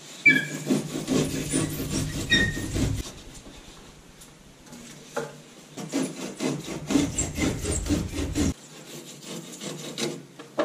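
Rigid foam insulation board scraping and rasping in two bouts of about three seconds each, with a few short squeaks near the start.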